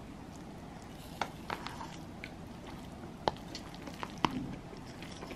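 A utensil stirring sticky, sauce-coated instant noodles in a cup: soft squishing with a handful of light, separate clicks of the utensil against the cup.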